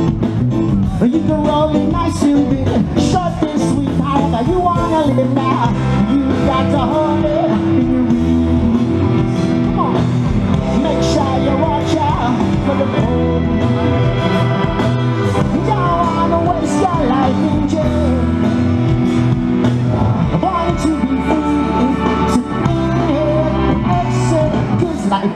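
A live band playing through a big outdoor PA, with a male lead singer, heard from within the crowd.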